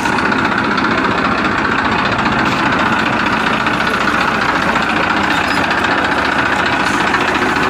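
Tractor engine running steadily at idle, an even, unbroken engine sound.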